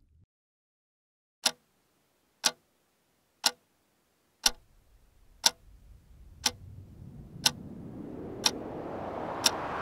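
Clock ticking once a second, a sound effect over a video intro. About halfway in, a low rumble and a rising noise swell start under the ticks and build steadily.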